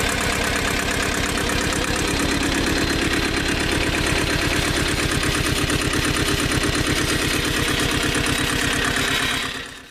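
1980 Ford 1200 compact tractor's three-cylinder diesel engine running steadily at low speed with an even, rhythmic firing beat as the tractor creeps forward in low range. The sound fades out near the end.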